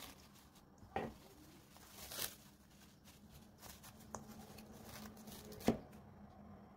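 Plastic cling film crinkling and rustling as hands fold it over a bowl, with a few sharp crackles, the loudest near the end.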